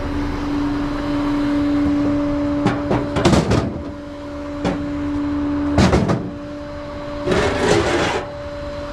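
A truck's engine runs with a steady hum. Several knocks and clatters of hard objects being handled come about three seconds in, again near six seconds, and as a longer clatter near eight seconds.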